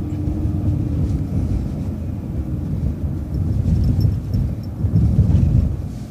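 City transit bus driving in traffic: a steady low engine and road rumble, with a hum that fades about a second in and the rumble swelling louder twice near the end.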